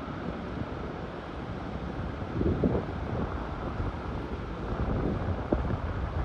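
Storm-force wind buffeting the microphone in low, gusty rumbles, with a stronger gust about two and a half seconds in.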